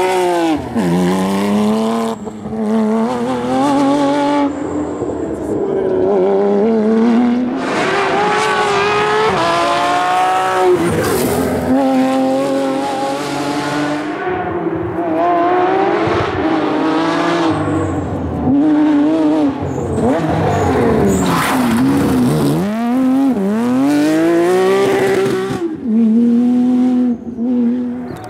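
Porsche 997 GT3 rally car's flat-six engine at full throttle, its pitch climbing repeatedly and dropping sharply at each gear change, with stretches of falling revs as it lifts and downshifts.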